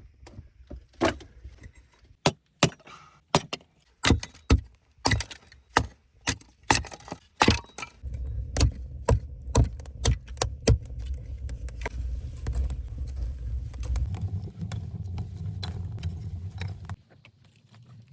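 A run of sharp knocks and cracks, several a second at first, then fewer over a low rumbling noise that starts about halfway through and stops shortly before the end.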